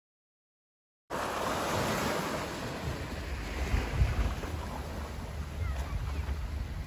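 Small waves washing up a sandy beach and around the hull of a beached sailboat, with wind buffeting the microphone. The sound cuts in suddenly about a second in.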